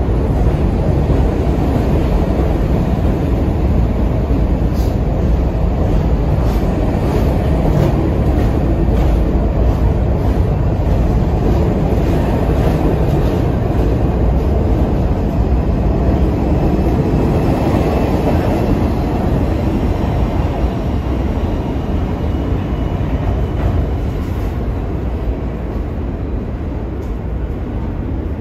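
New York City subway train of R46 cars moving along the platform with a steady heavy rumble of wheels on rail. A faint high whine comes in a little past halfway, and the rumble fades over the last several seconds as the train clears the station.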